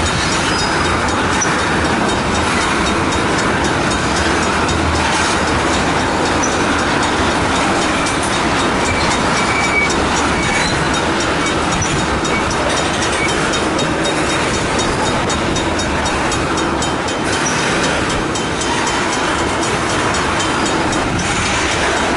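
Freight train of tank cars rolling past: a steady noise of steel wheels running on the rails, dipping slightly for a moment about three-quarters of the way through.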